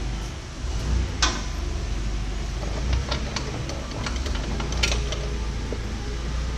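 A steady low mechanical hum with a few sharp clicks and ticks through it, one about a second in, a cluster around three seconds and one near five seconds.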